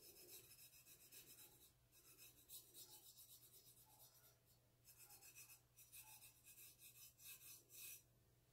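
Faint scratchy rubbing of a bare fingertip spreading gritty textured paste over a stainless steel tumbler, in short bouts with brief pauses, stopping near the end.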